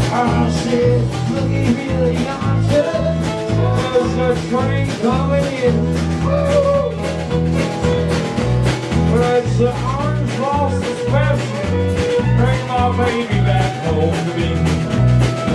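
A live country band playing a song: acoustic guitar, fiddle and banjo over a drum kit and low bass notes, with a steady beat.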